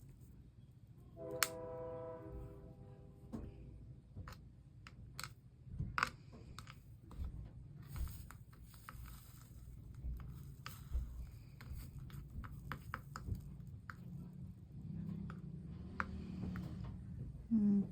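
Scattered light clicks and taps of glass pieces and tools being handled on a work table, with a brief pitched ring about a second and a half in.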